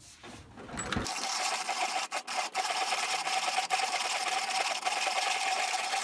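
Vintage Zassenhaus 580 hand-cranked table coffee grinder, its conical burrs set to the finest setting, crushing coffee beans as the side crank is turned: a steady grinding rasp that settles in about a second in, with a few brief breaks soon after.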